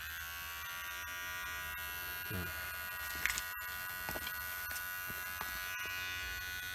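MANSCAPED Lawn Mower 3.0 electric body trimmer switching on and running unloaded with a steady buzz, with a couple of small handling clicks about halfway through.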